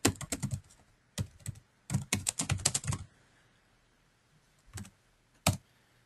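Computer keyboard keys clicking as a short line is typed in quick runs, stopping about three seconds in; two lone key presses follow near the end, the last one the Enter key sending the typed message.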